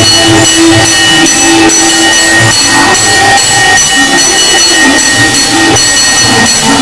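Bells ringing continuously, with many sustained metallic ringing tones and regular repeated strikes.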